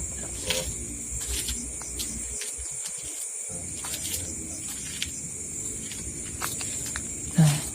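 Night insects, crickets by their sound, trilling steadily in a high band, with scattered faint clicks and a brief low thump near the end.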